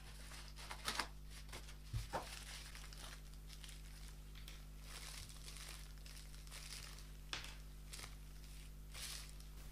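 Plastic packaging and bubble wrap crinkling faintly as small electronics parts are unwrapped by hand, with a few sharper crackles. A steady low hum sits underneath.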